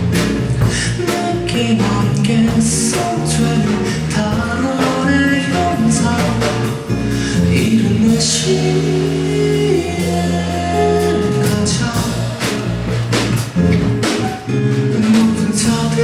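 Live acoustic rock band: a male vocalist singing into a microphone over acoustic guitar accompaniment.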